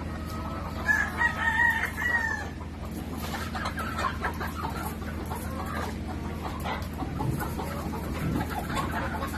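Dekalb Brown laying hens crowded in a wire crate: one long drawn-out call about a second in, then many short clucks and squawks overlapping, over a steady low hum.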